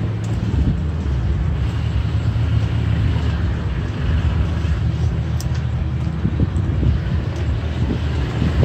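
Toyota Tacoma pickup driving slowly along a dirt off-road trail: a steady low engine drone with rough tyre and road noise over it.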